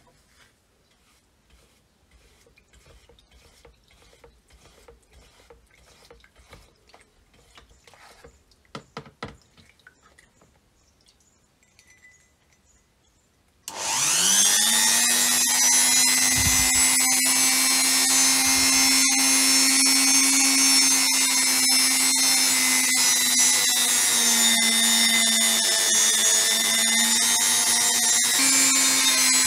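Faint scattered ticks and handling clicks, then about halfway through an electric power tool switches on, spins up quickly and runs steadily at speed with a steady motor whine. Its pitch dips slightly a few times near the end.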